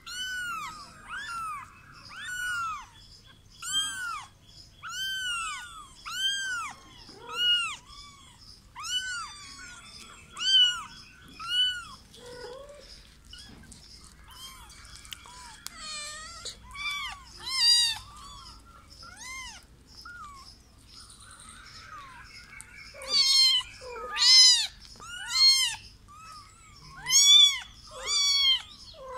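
Kittens mewing over and over in short, high-pitched, arching calls, about one or two a second, at times overlapping. The calls grow louder near the end.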